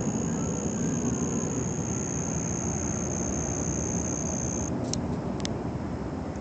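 A constant, deep roar from the sky, like a whole bunch of jet engines, starting to die away in the last second or two. A steady high-pitched whine above it stops abruptly about three-quarters of the way through, and a couple of sharp clicks follow.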